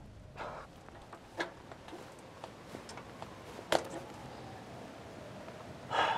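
Manual wheelchair being wheeled over paving and fallen leaves: a few scattered clicks and knocks from its wheels and frame, the loudest about midway, and a short squeak-like sound near the end as it comes to a stop.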